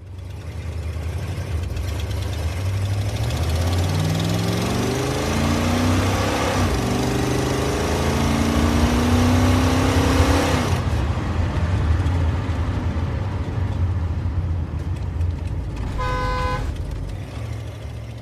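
Car engine under acceleration, its pitch rising, dropping at a gear change and rising again, over road and wind noise that cuts off about halfway through; a steady low engine hum runs on, and a short car horn toot sounds near the end.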